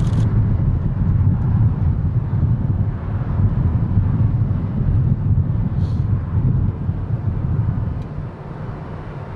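Steady low outdoor rumble across an airfield, dropping in level about eight seconds in.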